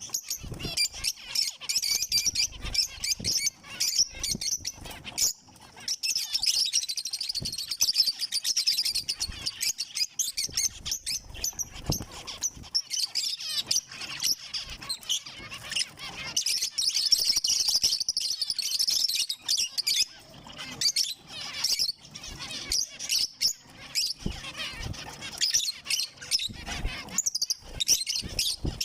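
Zebra finches chirping and calling in a dense, rapid run of short notes, with only brief lulls.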